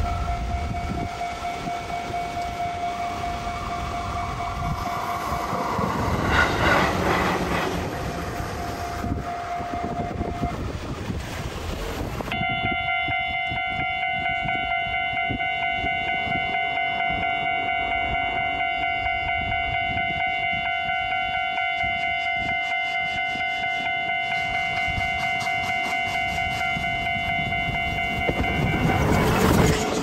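Level-crossing warning bell ringing steadily, with train noise on the rails. About twelve seconds in, a bell of a different pitch takes over, its rapid strokes ticking at an even rate.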